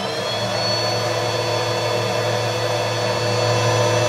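Stick vacuum cleaner's motor running at full speed with a steady high whine, the whine still rising as it comes up to speed at the very start.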